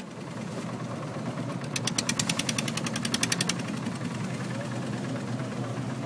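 Boat engine idling with a steady low hum. From about two seconds in, a rapid, even knocking comes through for a second and a half, about eight knocks a second.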